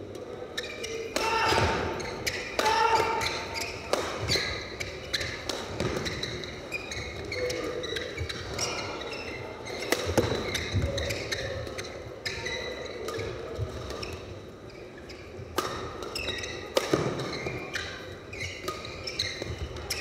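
Badminton doubles rally: rackets strike the shuttlecock over and over at an irregular pace, with the sharpest hit about ten seconds in. Shoes squeak briefly on the court mat between the hits.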